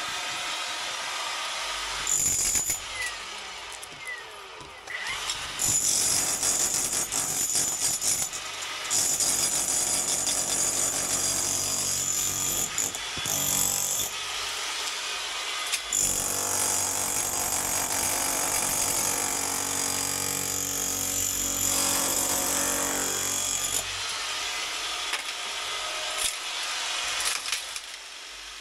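Cordless SDS rotary hammer with a chisel bit hammering render and brick off a porch wall. It runs in bursts of a few seconds with short breaks, the longest about eight seconds past the middle, and is quieter near the end.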